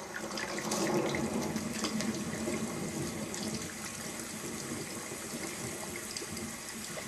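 Steady running water with many small splashes and drips.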